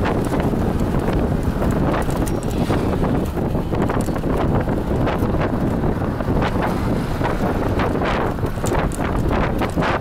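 Wind rushing and buffeting against the microphone of a moving vehicle, over a steady low road rumble.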